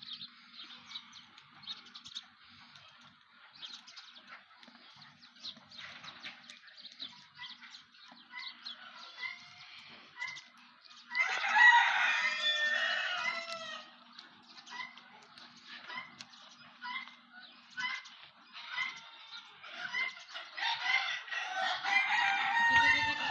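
Desi chickens clucking, with a run of short repeated calls about one and a half a second, and a rooster crowing loudly about eleven seconds in and again near the end.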